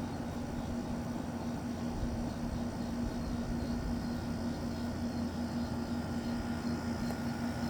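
A 2000 Frigidaire 5,950 BTU window air conditioner running, its Matsushita compressor giving a steady hum under the even rush of its fan.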